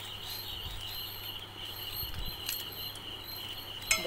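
A steady, high-pitched, pulsing insect trill, with a few soft clicks and thumps from a hand mixing food in a steel bowl.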